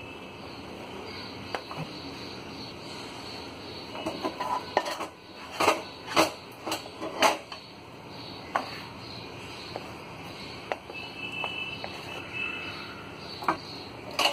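Metal utensils clinking and scraping while thick cooked cornflour dough is packed into a metal sev maker's barrel. A run of sharp clinks comes in the middle, with single clicks before and after, over a steady hiss.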